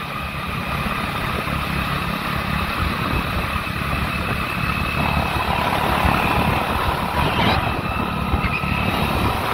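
Motor vehicle running steadily at travelling speed, engine and road noise with a constant rumble.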